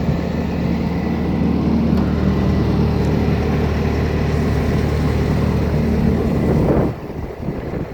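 Bobcat T595 skid steer's diesel engine running steadily, then falling away sharply about seven seconds in to a quieter, lower running.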